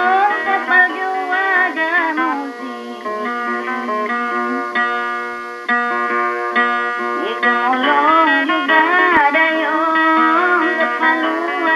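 Background music: a plucked guitar-like instrument with a gliding, ornamented melody line over it, possibly sung.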